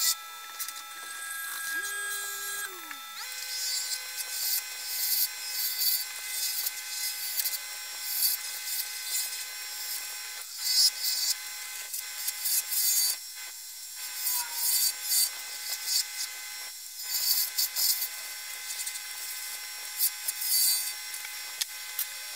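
Laguna wood lathe running with a steady whine of several tones that shifts up about three seconds in, while a turning chisel cuts the spinning curly maple blank in repeated short passes, each a brief high hiss.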